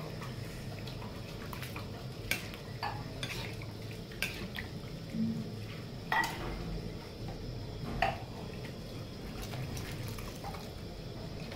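A steel ladle stirring a thick curry gravy in a steel kadhai, with scattered clinks and scrapes of the ladle against the pan every second or so.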